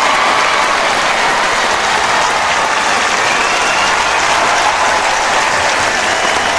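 Crowd applauding steadily, with faint cheering voices in the mix.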